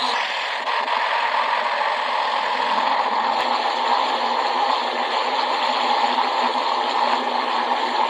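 Greenworks 80-volt cordless pressure washer running steadily, its turbo nozzle jetting water into a partly filled bucket: the pump's drone blended with the hiss and splash of the jet in the water.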